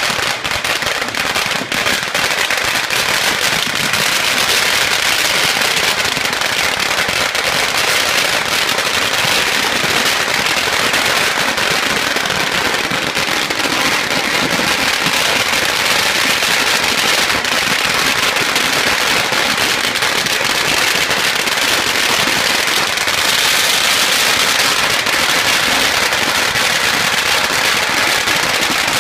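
Long strings of red firecrackers going off, a dense, rapid, unbroken crackle of small bangs that keeps up without pause.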